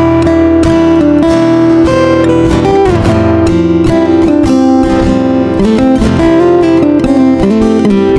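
Background music led by strummed and plucked acoustic guitar, with a steady run of sustained notes.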